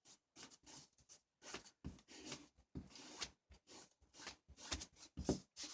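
Faint, irregular rubbing strokes on a small sanded wooden base as wood stain is worked into it, about a dozen short scrapes with small gaps between them.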